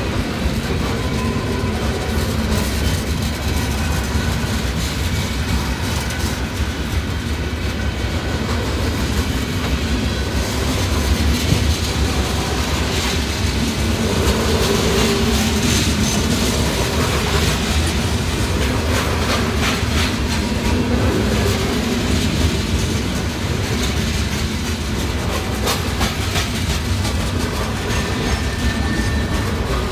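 Freight cars of a long mixed freight train rolling past at a grade crossing: a steady rumble of steel wheels on rail, with many short wheel clicks.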